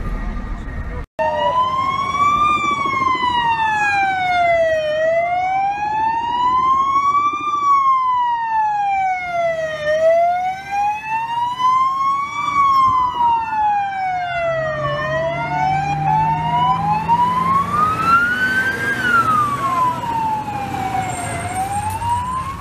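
Emergency vehicle siren wailing, its pitch slowly rising and falling about once every five seconds; in the second half a second siren joins, slightly out of step.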